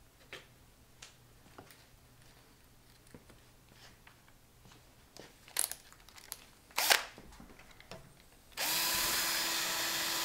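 A few light clicks and two sharper clicks, then near the end an electric drill starts and runs steadily at high speed, drilling into a Schlage deadbolt. The bit is making no headway against the lock's hardened steel anti-drill plate.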